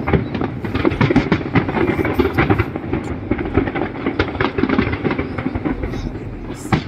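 Fireworks going off in rapid succession: a dense run of overlapping bangs and crackling pops over a continuous rumble.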